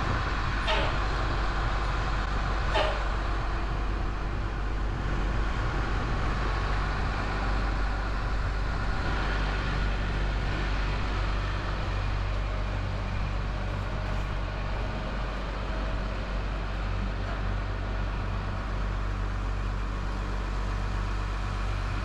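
Terex Demag AC200 all-terrain crane's diesel engine running steadily while the crane holds a 25-tonne test load. Two sharp clicks come within the first three seconds.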